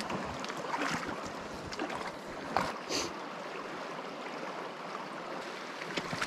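Shallow river water running steadily over a gravel riffle, with a few short splashes and scuffs as a small coho salmon is grabbed by hand at the water's edge.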